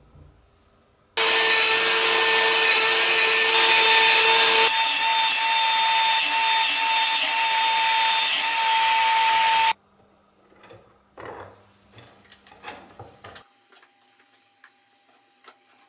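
Electric power tool clamped in a drill stand, running at high speed with a steady whine while its end cutter mills a notch into a steel tube held in a vise; it starts suddenly about a second in and cuts off suddenly near ten seconds. Afterwards, faint clicks and knocks of metal tubing being handled on a bench.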